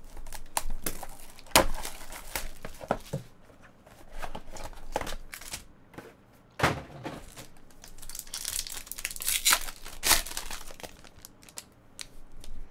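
Plastic shrink-wrap on a trading-card box crinkling and tearing as it is slit with a box cutter and pulled off, with a sharp knock about a second and a half in. Later a foil card pack crackles and tears as it is ripped open.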